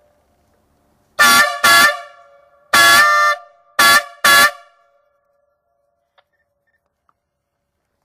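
Air horns on a garden tractor blown in five loud blasts over about three and a half seconds: two quick ones, a longer third, then two short ones, several tones sounding together in each, each trailing off briefly.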